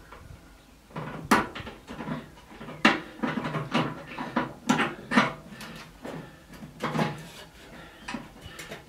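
Wire cutters snipping fine wires inside a microwave's metal housing: about six sharp snips at irregular intervals of one to two seconds, with light rattling of wires and sheet metal between them.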